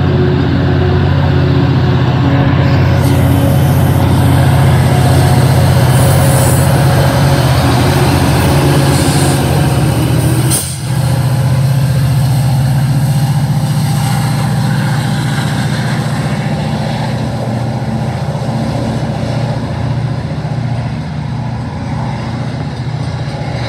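Metra commuter train passing with its MP36PH-3S diesel locomotive, number 403, working hard under throttle. The engine drone is loud and steady, then fades slowly as the train pulls away.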